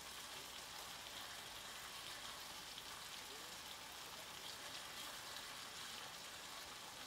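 Chops with kale, peppers and onions frying in a cast-iron skillet: a low, steady sizzle with light crackling.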